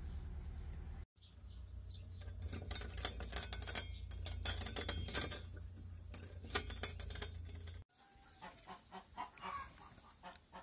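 Chickens clucking with a steady low hum and scattered light clicks; the sound cuts off abruptly twice and changes each time.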